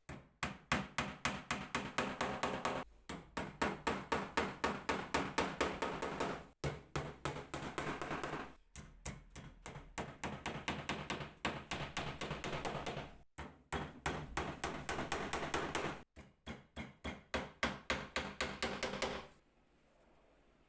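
A hammer tapping rapidly, about five light strikes a second, in runs of a few seconds with brief pauses, stopping shortly before the end.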